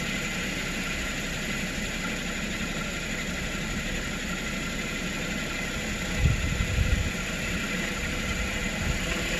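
2010 Toyota Corolla S four-cylinder engine idling steadily while it is tested for an intermittent cylinder 4 misfire (code P0304). A few low thumps come a little past the middle.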